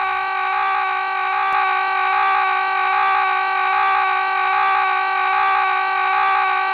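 Background music: a sustained droning synth chord that swells gently in a slow, even pulse.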